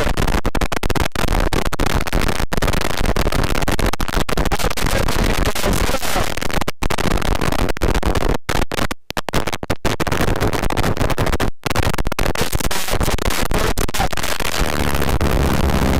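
Loud, harsh wind noise buffeting the microphone in flight under a paramotor (powered paraglider), cutting out in several brief dropouts midway. A steady low hum comes in near the end.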